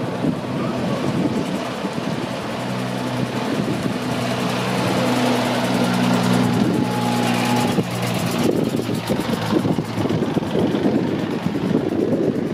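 Vintage cars driving slowly past over cobblestones, a steady low engine note with tyres rattling on the setts; the engine note fades about eight seconds in.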